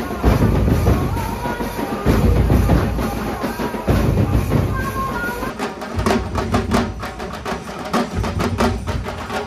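Loud music with heavy drums and percussion. About five and a half seconds in it switches abruptly to fast, dense drum strikes.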